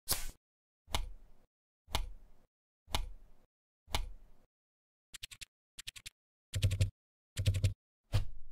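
Playing-card sound effects: crisp card snaps about one a second, then quick clusters of light clicks, then three louder, longer card bursts near the end.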